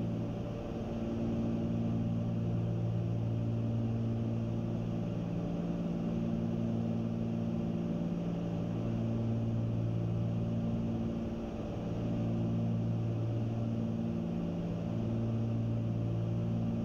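Cabin drone of a Cessna 310Q twin in cruise: its two six-cylinder piston engines and propellers running steadily, with a slow swell and fade in the drone every several seconds.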